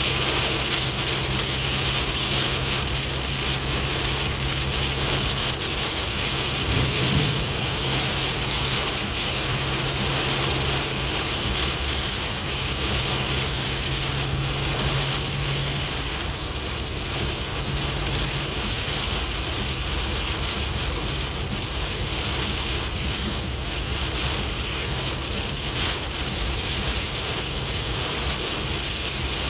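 Steady rain falling and splashing on surfaces, a constant even hiss, with a faint low hum beneath it that fades out about halfway through.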